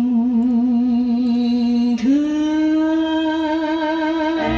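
Recorded music played from a cassette tape: a long held melody note with vibrato, then a higher held note about two seconds in, and bass and the rest of the band coming in near the end.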